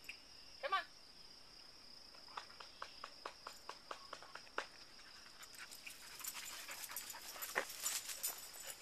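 Dog sniffing and snuffling at the ground in short quick runs, denser and louder in the second half, over a steady high drone of crickets.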